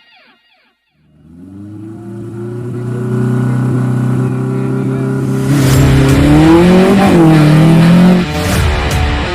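Off-road 4x4 vehicle's engine fading in after a moment of silence and running steadily. It is then revved harder for a few seconds, the pitch rising and falling, and drops off near the end.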